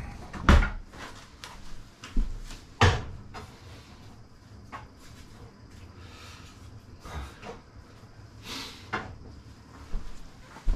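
Knocks and thumps of things being handled on a kitchen worktop: two loud knocks, about half a second and nearly three seconds in, with quieter clicks and clatter between.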